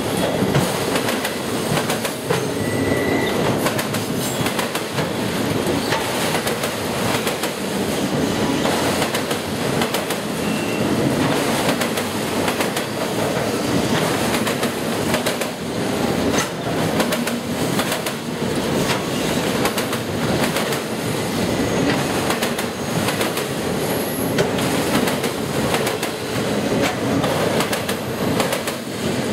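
Freight train of autorack cars rolling steadily past: the continuous rumble and rattle of steel wheels on rail, with the click of wheels over rail joints.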